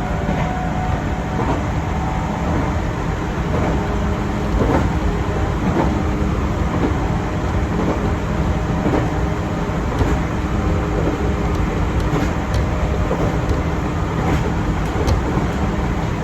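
Chichibu Railway 6000 series electric train running, heard from inside the car: a steady rumble of wheels and running gear with occasional clicks over the rails.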